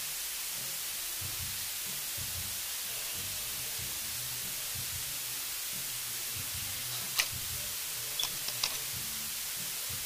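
Steady hiss with a faint low murmur underneath, broken by a few sharp clicks about seven seconds in and again a second later.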